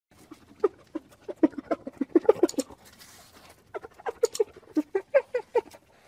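Spotted hyena giggling: two runs of rapid, short yelping notes, about six a second, with a pause of about a second between the runs.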